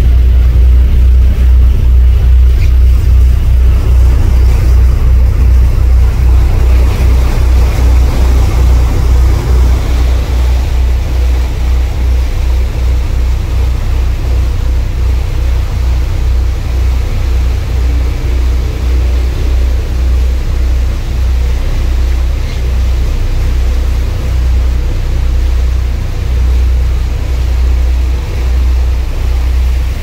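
Tour cruise boat under way: a loud, steady low rumble from the engine and wind buffeting the microphone, over the rush of the churning wake.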